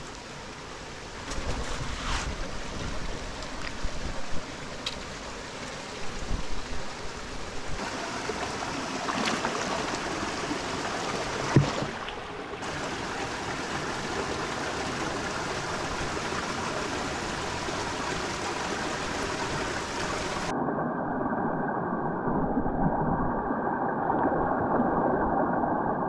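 Shallow mountain stream running and gurgling over rocks, with a few sharp knocks and splashes, the loudest about halfway through. The water sounds duller for the last few seconds.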